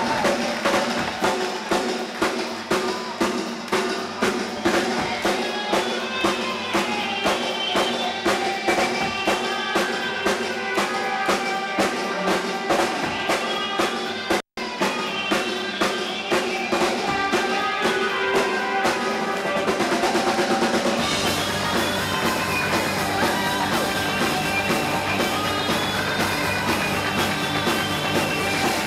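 Rock band playing live: a steady drum-kit beat with electric guitar over it, and low bass coming in about two-thirds of the way through. The sound cuts out for an instant about halfway.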